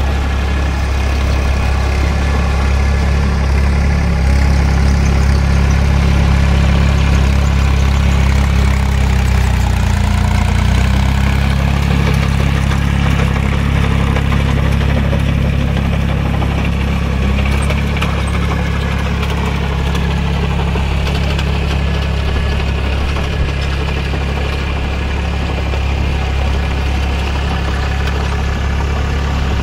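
Force Orchard mini tractor's diesel engine running steadily under load as it pulls a rotary tiller through a flooded, muddy field.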